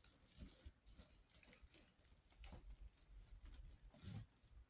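Faint, irregular rustling and light tapping of a twig bird's nest being handled and set down on a gel printing plate.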